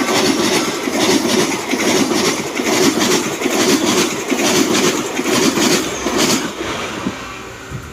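Train passing close by, its wheels clattering over the rail joints in a fast run of clacks. The noise tails off near the end as the last cars go by.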